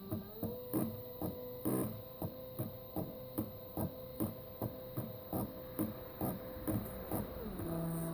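Small DVD-drive stepper motor driven in quarter steps by an A4988 driver, whining at a steady pitch that steps up about half a second in and drops back near the end as the pulse rate changes. Regular ticks come about two to three times a second.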